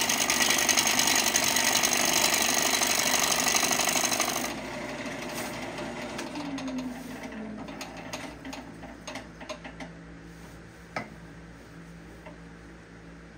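Bowl gouge cutting into a glued-up wood blank spinning on a lathe: a loud, rapidly pulsing rasp that stops sharply about four seconds in. The lathe then runs on with a lower hum that falls in pitch, with scattered light clicks and one sharper click near the end.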